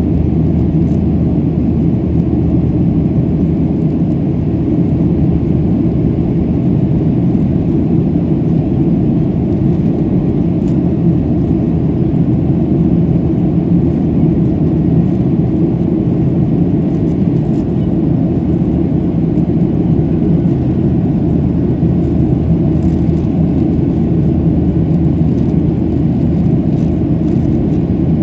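Steady low rumble of a Boeing 737-700 on takeoff: its CFM56-7B jet engines and the rushing air, holding an even level throughout.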